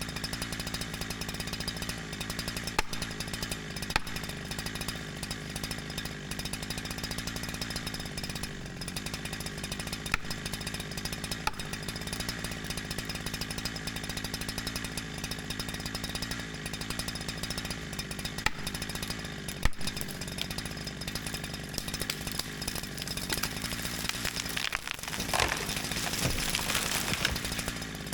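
Holzfforma 372XP two-stroke chainsaw, tuned rich while still breaking in, running steadily with a few sharp clicks over it. Its engine note dips and then picks up again, louder, near the end.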